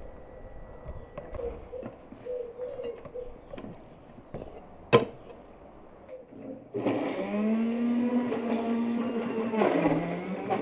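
A cow mooing: one long, loud call starting about seven seconds in, dipping in pitch near the end and then carrying on. A single sharp click comes shortly before it, about five seconds in.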